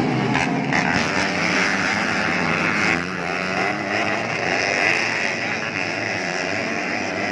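A pack of motocross dirt bikes racing, several engines revving at high revs over one another in a loud, continuous buzz.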